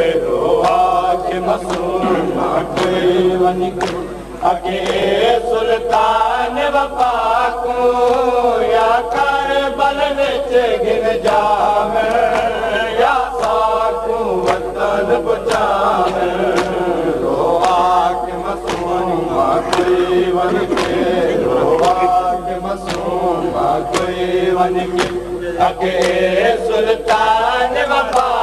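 A male reciter singing a noha, a Shia mourning lament, through a microphone, with a crowd of men chanting along. Behind the singing runs a steady rhythm of sharp slaps from the mourners beating their chests (matam).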